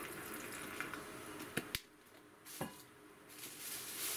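Cooking sake pouring from a plastic bottle into a zip-top plastic bag, then two quick sharp clicks and another a second later as the bottle is handled.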